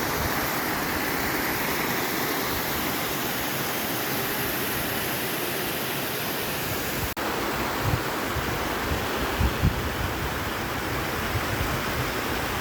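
Steady rushing of a river's water and falls, an even noise with no pause. There is a brief break about seven seconds in, and low bumps through the second half.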